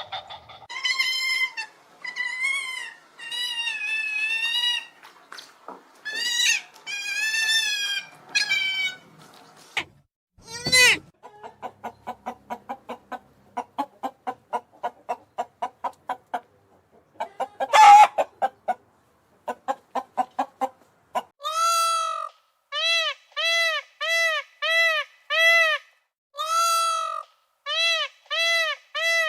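Chickens calling: drawn-out wavering calls at first, then a long run of quick, short clucks, and near the end a steady string of short, rising-and-falling calls, about one and a half a second.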